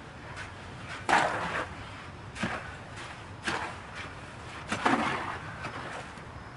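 A shovel repeatedly striking and scraping into dirt or concrete mix, about one stroke every second.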